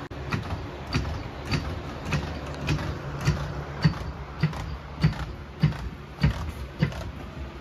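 Floor jack being pumped to lift a car, a clank with each stroke of the handle, about three strokes every two seconds.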